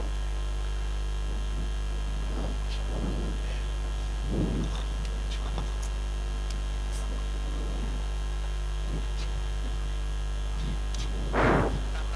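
Steady low electrical mains hum, with a few faint, indistinct voices and a brief loud rush of noise near the end.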